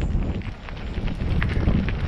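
Wind buffeting the microphone over a mountain bike rattling down a cobblestone track: a steady low rumble from the tyres on the stones, with scattered sharp clicks and knocks from the bike.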